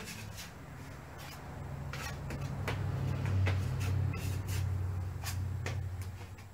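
Putty knife scraping and dabbing drywall mud onto a wall for a hand texture: a string of short scrapes and clicks. Underneath, a low hum swells to its loudest around the middle and fades near the end.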